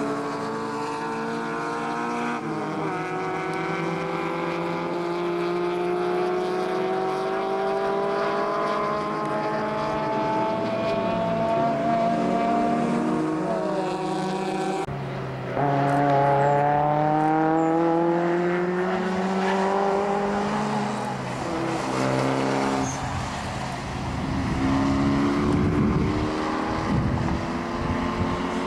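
Several race cars' engines on a circuit, overlapping, each note rising slowly in pitch as the cars accelerate. About halfway through the sound breaks off abruptly and resumes with another set of rising engine notes.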